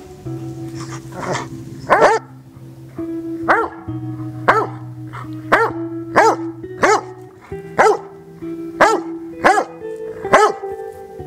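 Old English Sheepdog barking repeatedly at its owners lying motionless: about ten sharp barks, roughly one a second, starting about two seconds in. The owners take the barking for genuine worry. Acoustic guitar music plays underneath.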